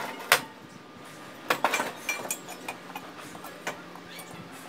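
Pieces of scrap steel angle bar being handled and knocked together on a worktable. There is a sharp metallic clink just after the start, a quick cluster of clinks and scrapes around a second and a half to two seconds in, then a few lighter taps.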